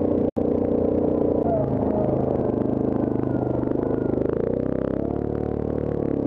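Yamaha Grizzly ATV's single-cylinder engine running under way, its note dropping about two seconds in, then climbing again about four and a half seconds in and easing off near the end as the throttle changes. The sound cuts out for an instant near the start.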